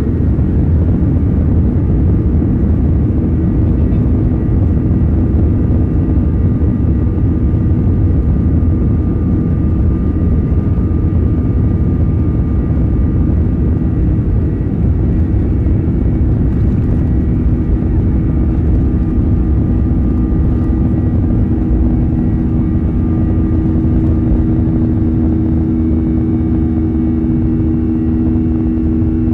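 Jet airliner cabin noise during the climb just after takeoff: a loud steady rumble of engines and rushing air, with steady engine whine tones that grow stronger near the end.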